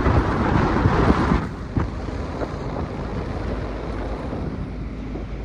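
Vehicle running, with a steady rumble of road noise and wind buffeting the microphone; louder for the first second and a half, then even.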